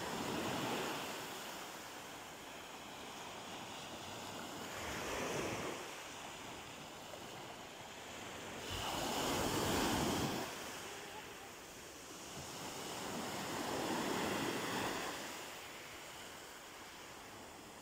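Small sea waves breaking and washing up a pebble beach: four surges about every four to five seconds, each swelling and fading, the loudest about halfway through.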